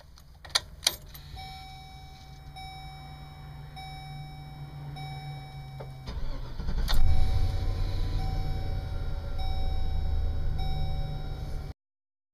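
Ignition key clicks and a repeating warning chime. About six seconds in, the engine of a 2004 Coachmen Freedom Class C motorhome on a GM chassis cranks and catches, then runs at a steady idle, with the chime still sounding over it.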